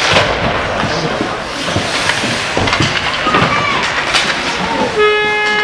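Youth ice hockey play in an indoor rink: skates scraping, sticks and puck clacking, and voices shouting in the stands. About five seconds in, a loud steady horn starts sounding.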